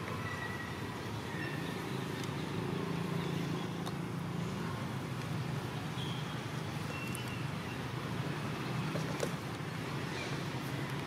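Steady low hum of a distant motor vehicle, wavering slightly in pitch, with a few faint short high chirps over it.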